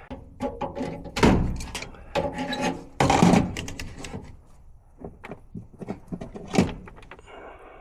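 A string of knocks, thuds and clicks from handling metal panels and tools at an air handler whose blower fan motor is not running, with the heaviest thumps about a second and three seconds in.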